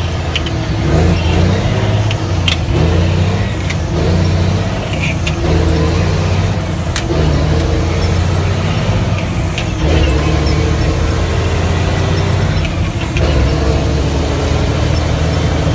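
Mack RD truck's diesel engine running under way, its note dropping away and coming back several times, with short sharp sneezes every second or two.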